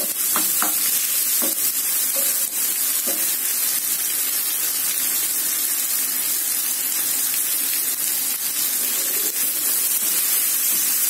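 Chopped onion and tomato sizzling in hot oil and ghee in a non-stick frying pan while a spatula stirs them, with a few short knocks of the spatula against the pan in the first few seconds. The sizzle is a steady hiss.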